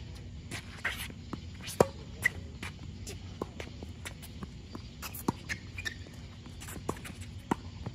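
Tennis rally on an outdoor hard court: irregular sharp pops of the ball on racket strings and bouncing on the court, the loudest about two seconds in, with short squeaks and scuffs of tennis shoes between the shots.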